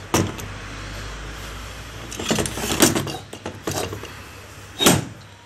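Metal knocks and clinks from a turbocharger and hand tools being handled. There is one sharp knock just after the start, a cluster of clatters in the middle, and another loud knock near the end.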